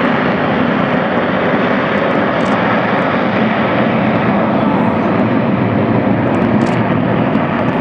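Airplane engine noise: a loud, steady rush of sound that holds even without rising or falling.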